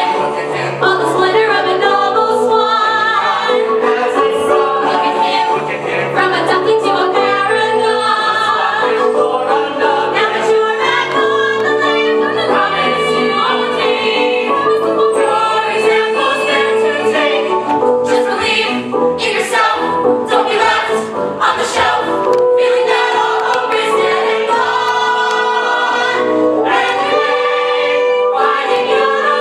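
An ensemble of voices singing together in chorus, a musical-theatre number.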